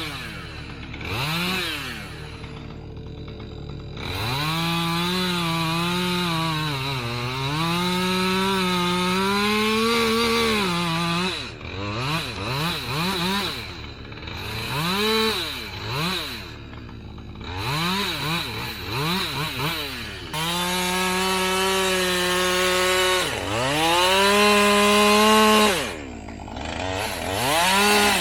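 Two-stroke gas chainsaw revving in short throttle blips and running two long cuts under load, the engine pitch sagging and recovering as the chain bites into the wood.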